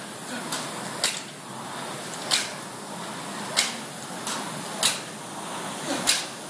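Two air-resistance rowing machines being rowed hard: the flywheel fans whir steadily, with a sharp knock at each stroke about every second and a quarter and softer knocks in between from the second machine.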